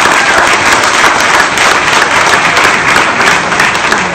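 Audience applauding: dense, steady clapping in answer to the speaker's applause line.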